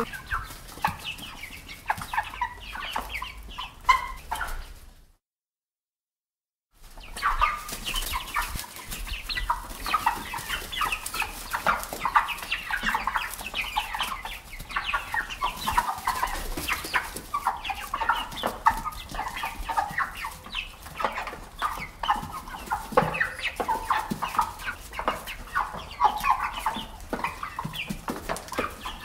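Domestic hens clucking: many short clucks packed close together, overlapping one another. About five seconds in, the sound cuts out completely for about a second and a half, then the clucking resumes.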